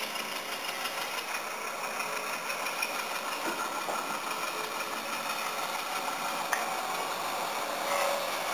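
Steady diesel engine sound from sound-equipped model diesel locomotives as the freight train runs toward the camera.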